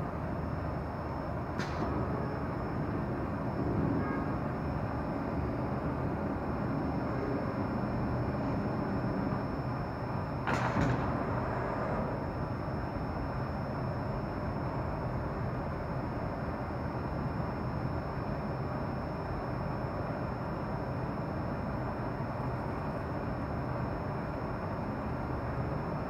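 Spiral mesh tube forming machine running steadily with a low hum and a faint high whine. Two sharp metallic clanks come from the sheet-metal mesh, a smaller one about two seconds in and a louder, ringing one about ten seconds in.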